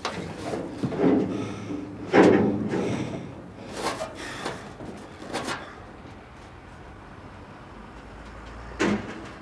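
Scrap metal clanking and banging as a person clambers over junk: a string of separate metal knocks, the loudest about two seconds in, then a quieter stretch and one last knock near the end.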